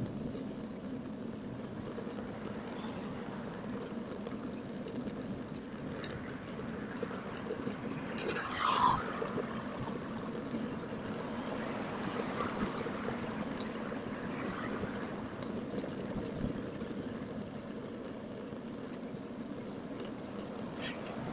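Steady wind and road noise on the microphone of a phone riding on a moving bicycle, played at double speed. There is one brief louder sound about eight and a half seconds in.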